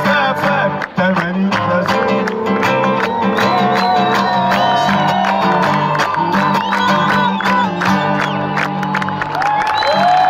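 Live instrumental music played through loudspeakers: quick strummed chords over a steady bass line. Crowd voices and cheers rise near the end.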